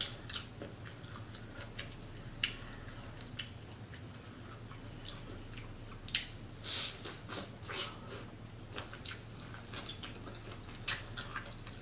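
Close-miked eating sounds of a person chewing: irregular wet mouth clicks and smacks, a few of them louder.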